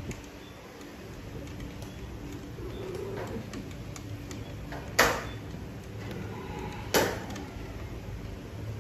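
Two sharp knocks, about five and seven seconds in, over a low steady hum.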